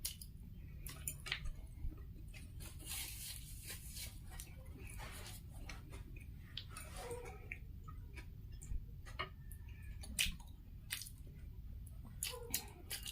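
Close-up chewing of food, with irregular soft clicks and smacks of eating scattered throughout.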